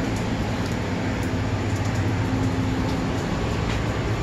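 Steady low machinery drone with a constant hum, and a faint held tone that fades out about three seconds in.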